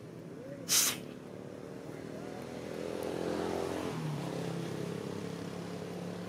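A motor vehicle's engine running steadily, growing louder from about two seconds in, with a step in pitch near four seconds. A short, loud hiss sounds about a second in.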